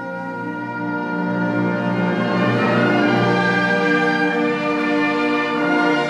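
Wind band of woodwinds and brass playing sustained chords, swelling in volume over the first three seconds and then holding full.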